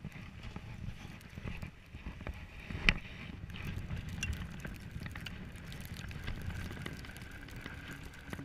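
Fatbike rolling over snow, heard from its handlebars: a steady low rumble with many small clicks and rattles, and one sharp knock about three seconds in.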